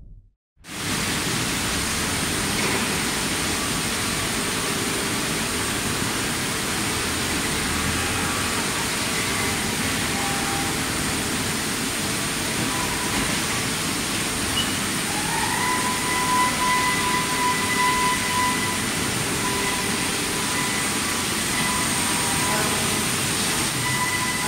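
Vertical CNC machining center running: a steady, even hiss and hum from the machine. About halfway through, a high whine comes in, rising briefly and then holding steady.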